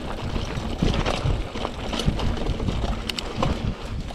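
Trek Marlin 7 hardtail mountain bike rolling along a dirt trail covered in leaf litter: steady tyre and trail rumble with wind on the microphone, and a few sharp clicks and rattles from the bike over bumps.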